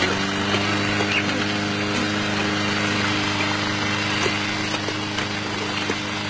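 Lawn mower engine running steadily at a constant pitch, with a few short clicks and knocks scattered over it.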